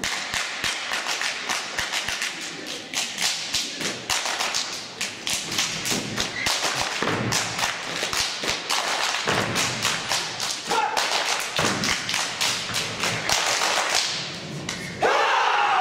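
Kung fu performers moving in unison on a stage: a rapid, irregular run of sharp slaps and thuds from strikes and stamping feet, with heavier stamps every second or two. About a second before the end, louder music comes in.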